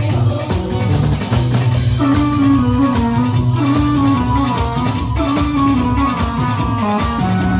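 Live band music played through stage loudspeakers: a stepping melody over a steady drum beat.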